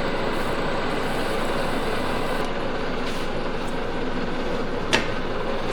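Metal lathe running with a steady, even noise that starts abruptly, and one sharp click about five seconds in.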